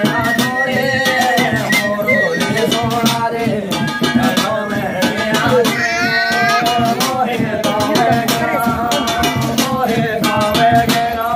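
Live Garhwali jagar music: a man's voice singing the jagar over steady drum beats and a rattling percussion.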